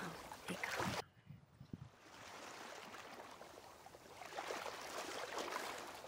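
Faint steady waterfront ambience of lapping water. It drops out abruptly about a second in, then returns as a steady faint hiss.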